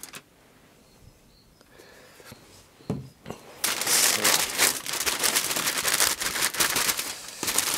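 Aluminium foil crinkling and crackling as a foil parcel is gathered and folded shut, starting about halfway through, after a single knock.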